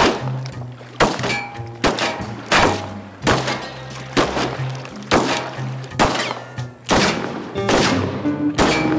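Gunshots from a handgun and then a rifle, fired singly at an even pace of about one a second, each a sharp crack with a short ringing tail. Background music plays underneath.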